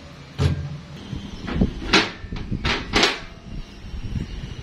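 Metal clunks and knocks as a heavy cast-metal Tokico 2-inch flow meter and its fittings are handled and lifted off a steel work stand: several sharp knocks, the loudest about two and three seconds in.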